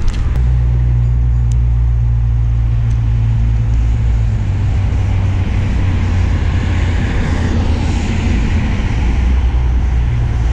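Road traffic: a steady low vehicle engine rumble, with a car passing on the road, its tyre hiss swelling and fading about six to nine seconds in.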